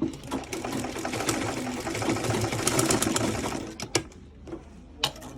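Sewing machine stitching, restitching a seam over a place where stitches were skipped; it runs steadily for nearly four seconds, then stops, followed by a couple of sharp clicks.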